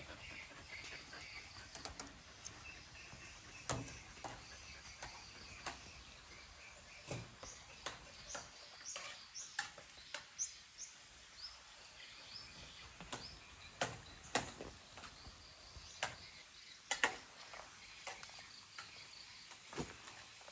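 Faint outdoor ambience: birds chirping, with a run of short chirps in the middle, over a faint steady insect drone. Scattered sharp clicks and taps are the loudest sounds throughout.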